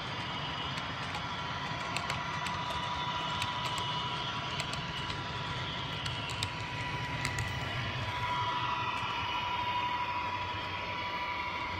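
HO-scale model train running on track: a steady motor hum and whine, a little louder about two-thirds of the way through, with scattered light clicks from the rolling cars.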